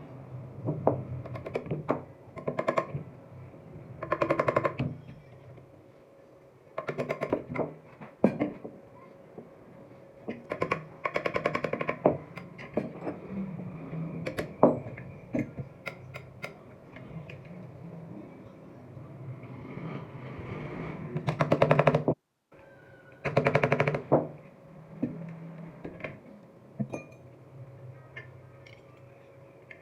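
Rapid mechanical clicking in short runs of about a second each, repeated several times over a low steady hum.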